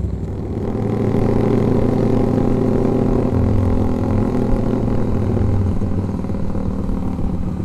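Motorcycle engine running steadily under light throttle while cruising at about 40 km/h, heard from the rider's own bike, most likely a Honda CB150R.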